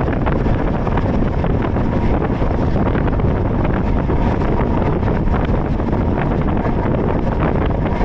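Wind buffeting the microphone over the steady rumble of a moving passenger train.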